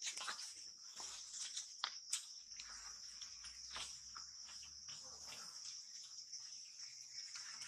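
Steady high-pitched drone of insects, with scattered faint clicks and rustles.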